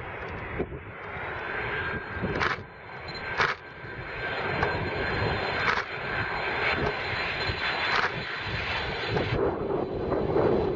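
Boeing 767 twin-jet on final approach with gear down, its engines giving a steady rushing roar with a faint high whine, slowly growing louder as it nears. A few brief thumps stand out over it.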